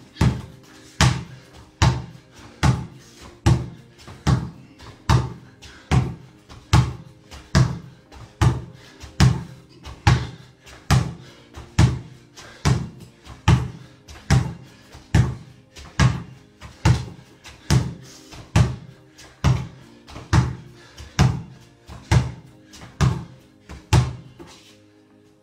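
Basketball bounced on a tile floor in a steady rhythm, a little more than once a second, about thirty bounces, stopping near the end, over background music.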